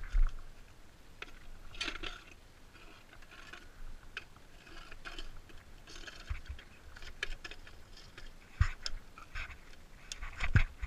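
A metal dirt-bike stand being handled and set under the bike on gravel: scattered clinks, scrapes and scuffs, with a few dull thumps, the loudest near the end.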